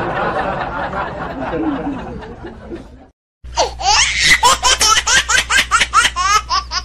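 Laughter sound effects: a laugh that fades out over about three seconds, then after a brief silence a high-pitched, rapid laugh in quick repeated rising and falling notes, about four or five a second.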